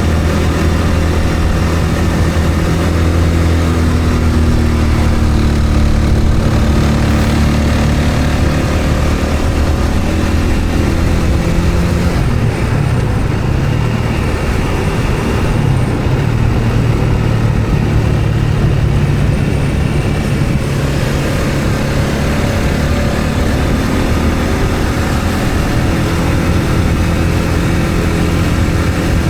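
A road vehicle's engine running on the move, with road noise. The engine note shifts up and down several times as the speed changes.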